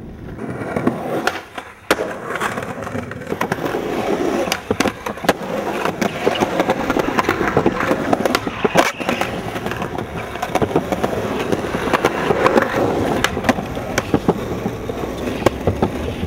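Skateboard wheels rolling on concrete with many sharp clacks of the board popping and landing, and metal trucks grinding along a concrete ledge near the end.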